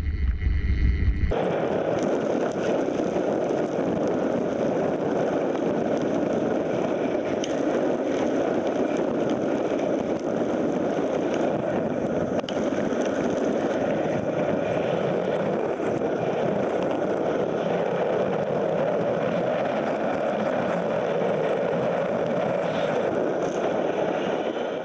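Steady rush of wind and mountain-bike tyres rolling over a packed dirt trail at speed, starting about a second in.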